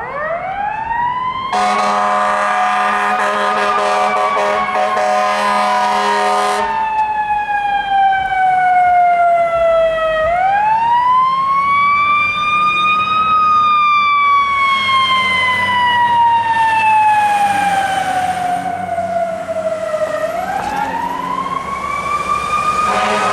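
Fire engine responding with its siren wailing: it winds up quickly, then falls slowly over several seconds, three times. The air horn sounds one long blast of about five seconds over the first rise, and blasts again right at the end.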